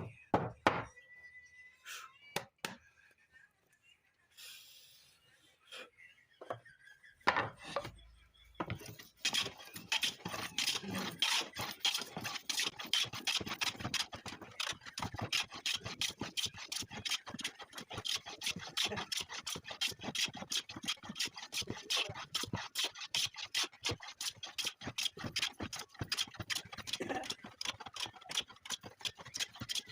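A few separate knocks on wood, then quick back-and-forth strokes of a hand tool scraping over wood, about four a second, starting about nine seconds in and continuing without a break.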